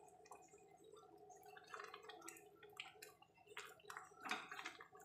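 Faint bubbling of a thick lobia curry simmering in a kadai, with scattered small pops.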